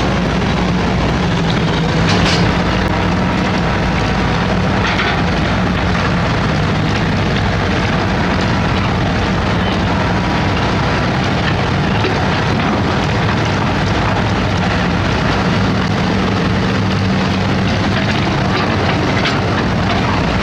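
Diesel engine of heavy construction machinery running steadily under load, with a few short knocks.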